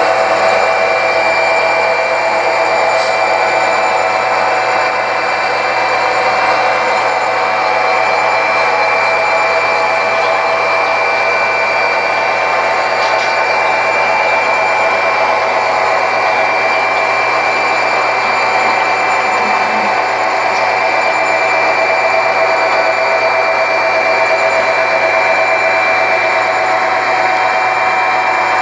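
HO scale model freight train running by on the layout: a steady mechanical running noise with a high whine from the locomotive motors and wheels on the track.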